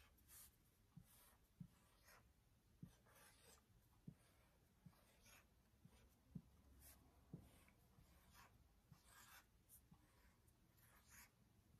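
Faint sound of writing by hand: a series of short scratchy strokes with light taps between them, as letters are written out.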